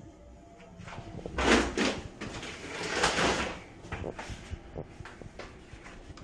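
A door being moved: two noisy, scraping sweeps, each about half a second long and about a second and a half apart, followed by a few light clicks and knocks.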